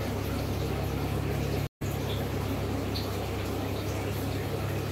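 Aquarium filter and water pump running: a steady low hum under a continuous hiss of moving water. The audio cuts out for an instant a little under two seconds in.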